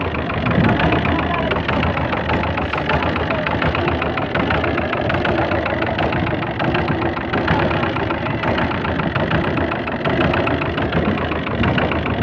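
Fishing boat's engine running steadily, with a fast, even beat.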